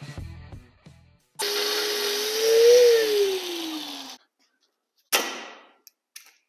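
Angle grinder with a cut-off wheel cutting through a steel transmission crossmember for about three seconds, its whine rising and then falling as it cuts, before it stops abruptly. About a second later comes a single sharp knock.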